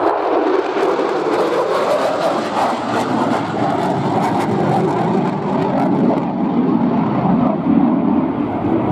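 Lockheed F-35B Lightning II jet in flight, its single F135 afterburning turbofan giving a loud, steady roar. The higher hiss in the roar fades after about six seconds.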